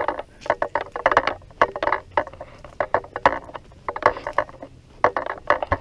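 Footsteps crunching on dry leaves, twigs and bare dirt at a walking pace, about two crackling steps a second.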